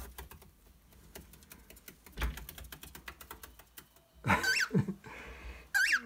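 Light clicks and scratches as a cockatiel moves about on a cardboard box, then loud, sharp cockatiel calls about four seconds in and again near the end.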